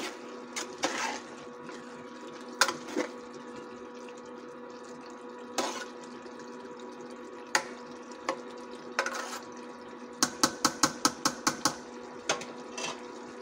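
Metal spoon stirring minced beef in an aluminium pot, knocking and scraping against the pot every second or two, then a quick run of about eight taps on the pot near the end. A steady hum from the induction cooktop runs underneath.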